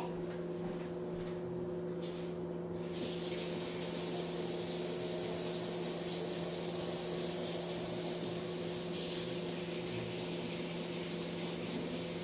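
Kitchen tap water running in a steady stream, starting about three seconds in.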